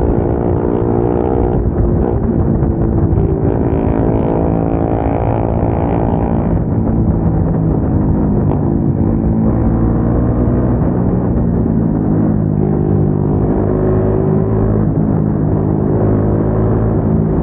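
Single-cylinder motorcycle engine with an aftermarket exhaust under way. Its note climbs through the revs over the first six seconds or so, then holds steadier at cruising revs.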